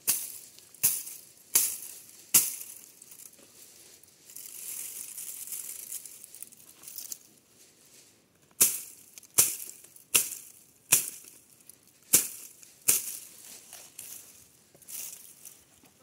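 A series of sharp, crisp hits, about one every three-quarters of a second, in two runs: three in the first few seconds and about six more in the second half. A soft hissing rustle comes between the runs and another near the end.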